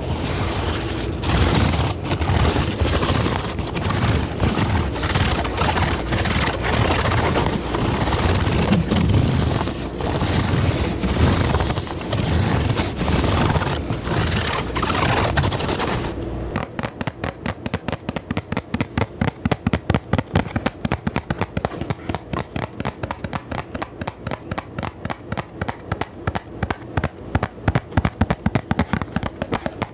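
Close-miked ASMR trigger sounds: dense scratching and rubbing on the microphone with heavy low thumps. About halfway through it changes to fast, even tapping or clicking, about four to five strikes a second.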